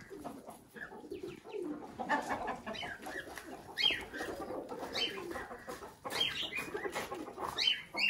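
Chickens clucking, with pigeons cooing among them; short sharp calls come about once a second.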